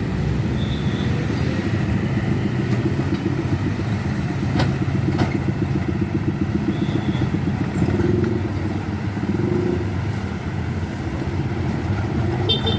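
Road traffic: engines of passing vehicles running steadily, with two sharp clicks about halfway through.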